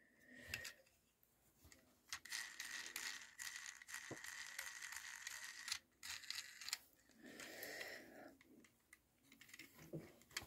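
Faint clicks and rustling of a plastic Transformers action figure's parts being handled and pressed together.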